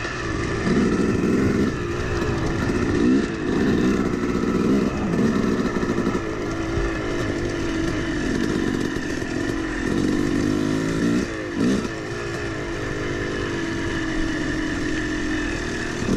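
Yamaha YZ250 two-stroke dirt bike being ridden, its engine revving up and dropping back over and over, about once a second as the throttle is worked, then holding steadier near the end.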